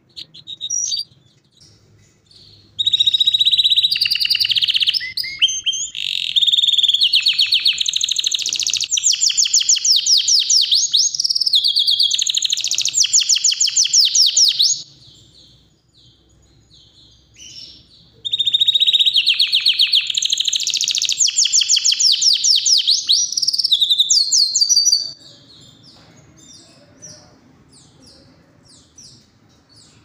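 Yorkshire canary singing in two long bouts of rapid trills and rolls, the first starting about three seconds in and lasting some twelve seconds, the second starting at about eighteen seconds and stopping about seven seconds later. Short scattered chirps come before, between and after the bouts.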